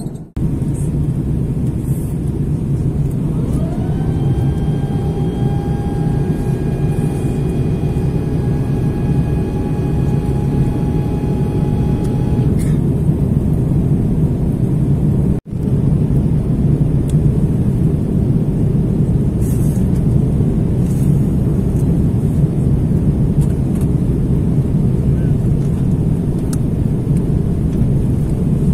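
Steady low rumble of an Airbus A330 airliner cabin. A whine rises about three seconds in, holds at one pitch and stops about twelve seconds in. The rumble breaks off briefly twice.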